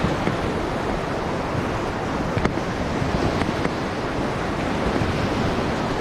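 Steady rushing of river rapids around an inflatable raft, with wind buffeting the microphone. A few faint knocks can be heard in the middle.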